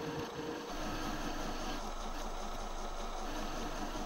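Metal lathe running steadily while a grooving tool cuts an undercut groove into the spinning metal bar, getting a little louder about a second in.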